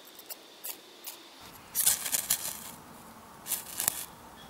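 Ferrocerium fire steel scraped hard with a metal striker to throw sparks onto tinder: a light stroke, then a cluster of quick scrapes about two seconds in and two more near the end.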